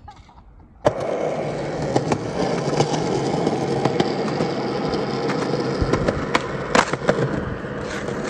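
Skateboard wheels rolling on concrete, a steady grinding rumble that starts suddenly a little under a second in, broken by a few sharp clicks and clacks.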